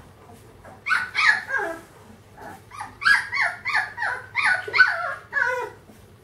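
Three-week-old Bernese Mountain Dog puppy yipping. There are a few short high calls about a second in, then a quick run of about eight more, each falling in pitch.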